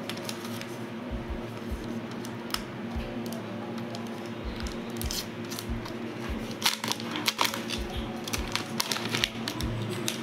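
Background music with a steady beat. Over it, plastic packaging crackles and clicks as a new smartphone is handled and slid out of its plastic sleeve, loudest about seven seconds in.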